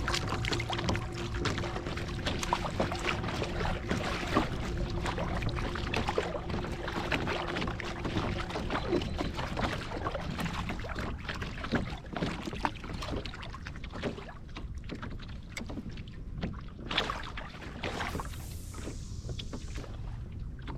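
Pedal kayak underway, water splashing and lapping against the hull. A steady whine from its drive cuts out about nine seconds in, and there is a louder splash near the end.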